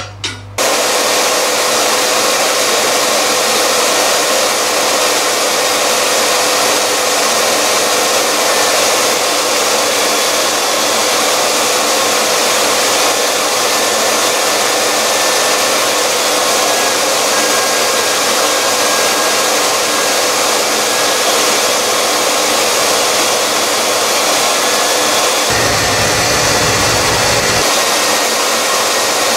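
Tool post grinder wheel grinding a lathe's spindle nose taper, over the steady rush of a shop vacuum collecting the grinding dust. The loud, even whirring comes on suddenly about half a second in and holds steady, with a brief low hum near the end.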